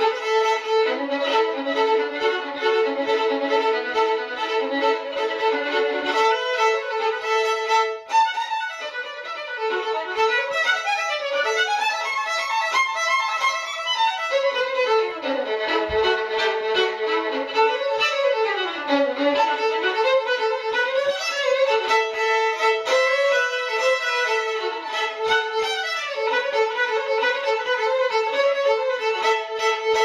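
Violin music: a bowed melody that runs without a break, its notes sliding up and down in places.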